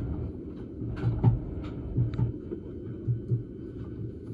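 Railway platform ambience: a steady low hum from the station and the standing electric train, with the soft footsteps of people walking past and a few light clicks.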